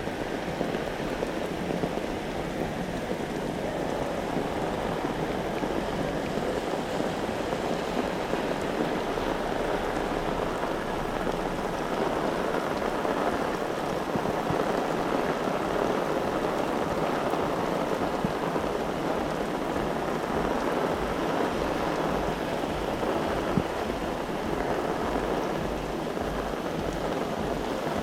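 Heavy rain falling and splashing steadily on the street, with wind buffeting the microphone in uneven low rumbles.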